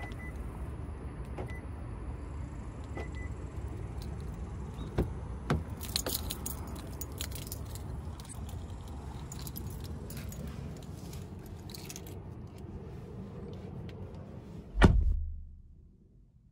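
Clicks and jingles about five to seven seconds in as the driver's door of a 2021 Hyundai Sonata is opened, over a steady low rumble. Near the end the door shuts with a loud thump, and the sound becomes muffled as inside the closed cabin.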